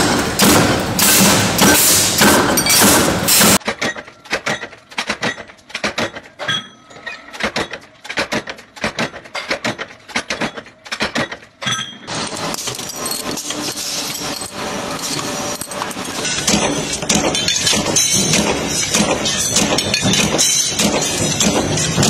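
Metalworking machinery working steel discs. A dense machine noise runs for the first few seconds, then sharp metal clanks come one after another with short gaps, then a steady machine noise carries on with clatter to the end.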